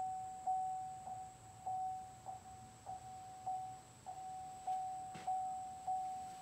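Chevrolet Camaro's interior warning chime dinging over and over at one pitch, about every 0.6 s, each ding dying away, while the driver's door stands open.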